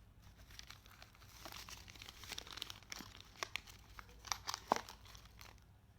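Phone packaging being handled: irregular crinkling and rustling with scattered sharp clicks, the loudest about four and a half seconds in.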